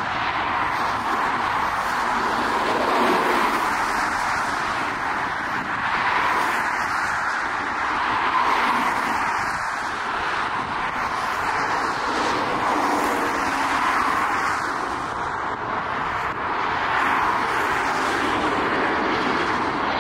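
Jet engine noise from a Boeing 777 descending on final approach to land, a steady rushing sound, mixed with road traffic that swells and fades every few seconds.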